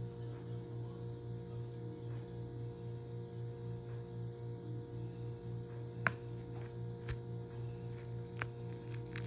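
A steady low hum of several held tones, pulsing about three times a second. Over it come a few sharp clicks in the second half, a metal fork tapping the plastic bowl.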